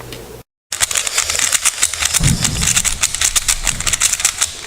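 Rapid, dense clicking, roughly eight to ten clicks a second, starting after a brief cut to silence, with a low thud midway.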